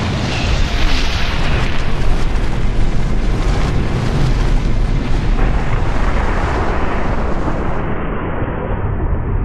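Explosion-style sound effect for an animated title reveal: a loud, steady rush of noise with deep bass. Its high hiss drops away near the end.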